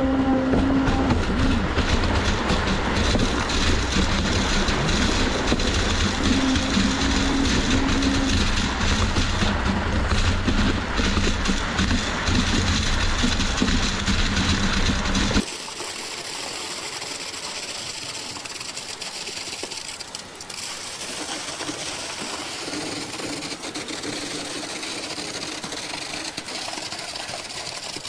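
Concrete pump running loud and steady, engine and pumping pushing concrete through the end hose into ICF wall forms. It cuts off suddenly about halfway through, leaving a quieter, steady noise.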